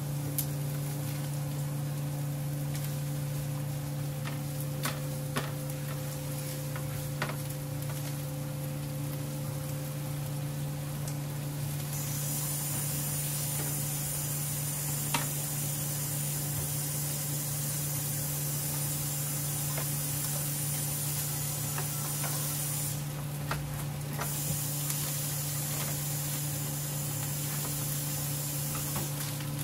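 Taco meat sizzling on a hot comal, the frying hiss growing much louder about twelve seconds in and dipping briefly near the end. A steady low hum runs underneath, with a few sharp clicks here and there.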